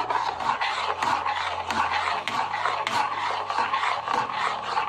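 Metal spoon stirring and scraping round a metal pan of milk, curd and sugar cooking down on high flame, in quick, continuous strokes.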